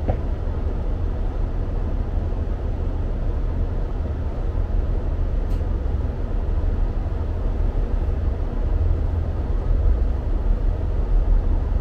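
Diesel multiple unit's engine rumbling steadily under the floor, heard from inside the passenger carriage while the train stands at the platform, growing a little louder in the last few seconds.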